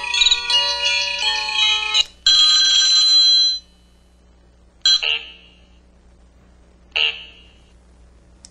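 A mobile phone's polyphonic ringtone melody playing through its small speaker, stopping about two seconds in. Then a held electronic tone of about a second and a half, followed by two short electronic effect sounds about two seconds apart.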